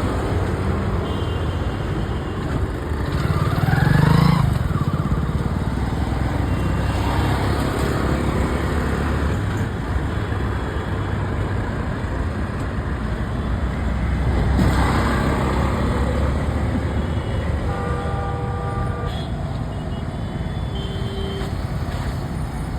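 Steady road traffic: vehicle engines running, with a vehicle passing close about four seconds in and another around fifteen seconds.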